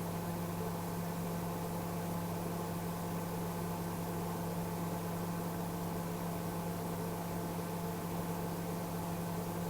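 Microwave oven running with a steady hum while heating a glass of water, on a test run of its repaired mica waveguide cover.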